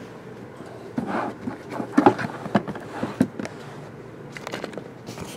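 Handling noise: a run of light clicks, knocks and scrapes, clustered about a second to three and a half seconds in, with a few more near the end.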